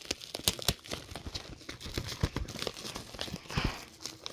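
Plastic shrink wrap crinkling and tearing as it is peeled off a DVD case, in a run of irregular crackles.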